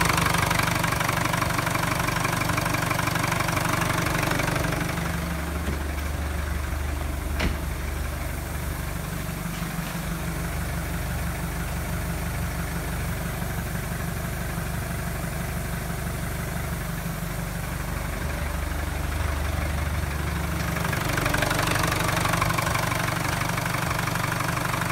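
Nissan YD22DDT 2.2-litre four-cylinder turbodiesel idling steadily. Heard close to the engine at first, it has plenty of mid and high mechanical noise. From about five seconds in until about twenty-one seconds, the deeper, steadier exhaust note from the tailpipe dominates, then the engine-bay sound returns. There is a single sharp click at about seven seconds in.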